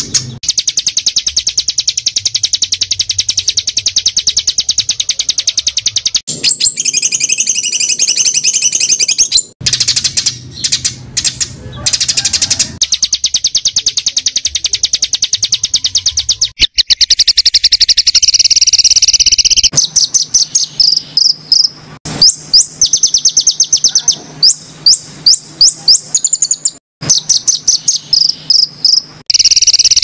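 Small songbirds singing very fast, high-pitched trills of sharp repeated notes, the rapid 'tembakan' phrases of a bird-tutoring masteran recording, broken by short pauses. In the second half, separate downward-sliding notes come a few a second between the trills.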